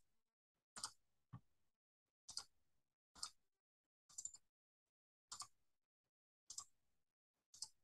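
Computer mouse clicking: about eight short, sharp single clicks spaced roughly a second apart, with near silence between them.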